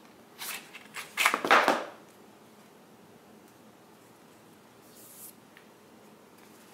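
Rustling and scraping of a fabric speaker carrying case being pulled out of a tight cardboard packaging tray, in two short noisy bursts within the first two seconds, the second louder. After that only faint handling, with one soft rustle about five seconds in.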